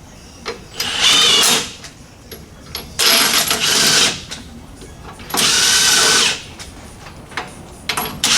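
Power tool running in three bursts of about a second each, a couple of seconds apart, with a whine under the rattle; typical of nuts being run down during reassembly.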